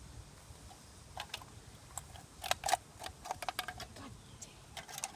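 Scattered light clicks and taps at irregular intervals, a cluster of sharper ones about two and a half to three and a half seconds in.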